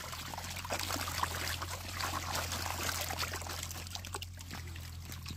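Many small fish flapping and wriggling in shallow water in a net, making a dense patter of tiny splashes and trickling water. A steady low hum runs underneath.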